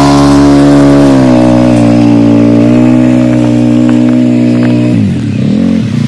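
CFMOTO CForce 450L ATV's single-cylinder engine running hard at steady revs under plowing load. The revs dip and pick up again about five seconds in.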